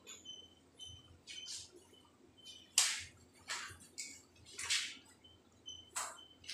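Chalk scraping across a blackboard along a ruler in about five short strokes, the loudest near three seconds in. Short high chirps repeat between the strokes.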